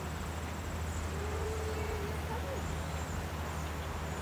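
Steady outdoor background of a low hum and an even hiss. Over it runs a faint, thin high-pitched trill, and there are a couple of faint drawn-out low calls about a second in and again around two and a half seconds.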